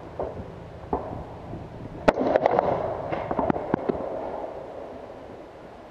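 AR-15-style rifle fired, a sharp crack about two seconds in that rings and echoes away, with several fainter sharp cracks around it over the next second and a half.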